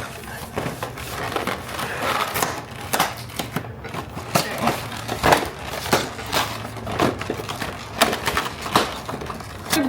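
Toy packaging being handled and opened: irregular crunches and crackles, a few strong ones spaced a second or so apart.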